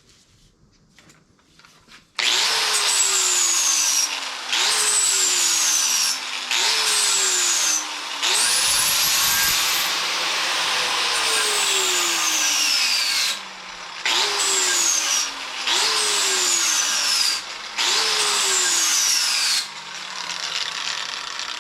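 A handheld power tool run in about eight short passes on a steel bicycle fender, starting about two seconds in. Its pitch sinks during each pass and briefly rises again between passes.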